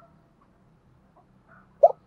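Spotted dove pausing between cooing phrases: a quiet gap, then the short first note of its next coo near the end.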